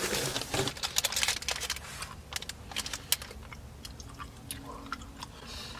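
Chewing of hard, stale Welch's snacks, with crinkling of the snack packet: many small crisp clicks and crunches, densest in the first two seconds and sparser after.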